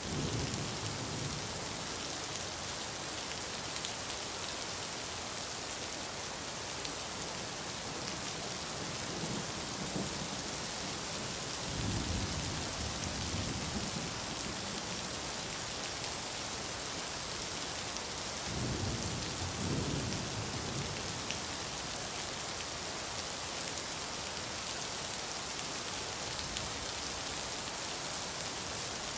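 Steady rain falling in a dense, even hiss, with a few low rumbles swelling and fading in the background, the strongest about twelve seconds in and again about nineteen seconds in.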